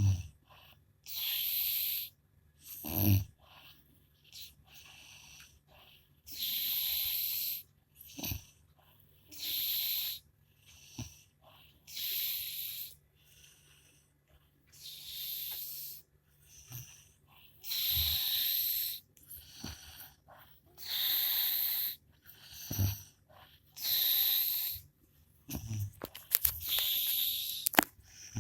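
A woman snoring in her sleep: a hissing, airy breath about every three seconds, several of them met by a short, low snort.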